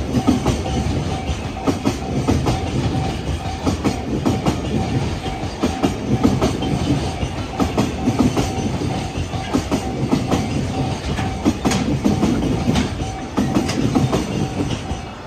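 Freight train wagons rolling past, their wheels clattering loudly over the rail joints in a continuous run of clicks.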